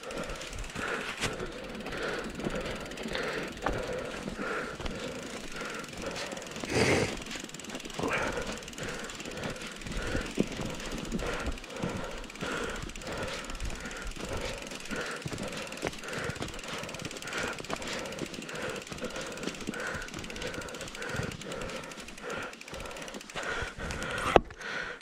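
Mountain bike being ridden through snow: a steady rhythmic rattle from the bike, about two pulses a second, with a loud knock about seven seconds in and a sharp click near the end.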